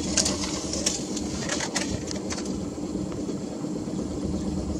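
A boat's motor runs steadily with a low hum, and several sharp clicks come in the first two and a half seconds.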